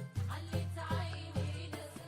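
Background music with a steady beat, about two bass hits a second, and a melody over it.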